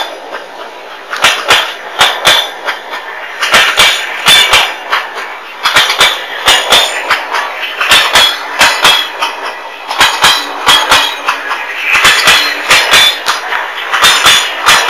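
Passing passenger train: the coaches' wheels clack over the rail joints in groups of sharp metallic clacks about every two seconds, over a steady rolling rumble.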